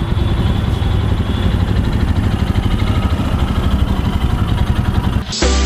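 Royal Enfield Himalayan's 411 cc single-cylinder engine running steadily at low revs, a dense low pulsing. Near the end it cuts off abruptly into background music.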